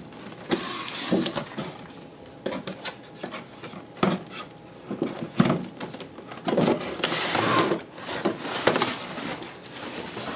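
Cardboard toy box being opened and handled: the end flap pulled open and the box shifted about, with irregular rustling, scraping and knocks of cardboard and its plastic window.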